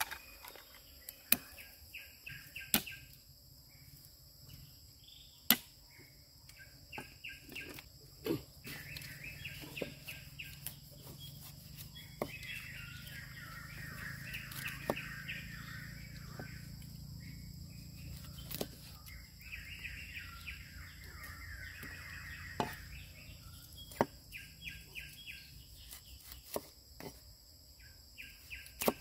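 Outdoor forest ambience: a steady high insect drone under bouts of repeated bird chirps, with irregular sharp knocks every few seconds.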